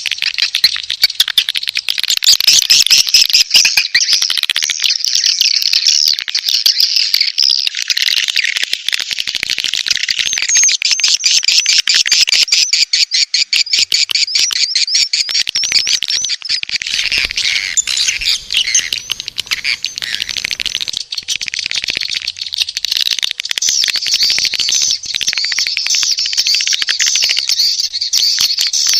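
Swiftlet mating-call lure recording: a dense, unbroken chatter of many swiftlets' rapid high chirps and buzzing trills.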